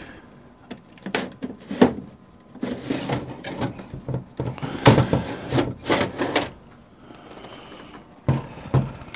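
Sheet-metal cover of a Packard Bell Axcel 2420 desktop case being slid off the chassis: a series of clunks and knocks with a metallic scraping rattle. A quieter pause follows, then two thuds near the end.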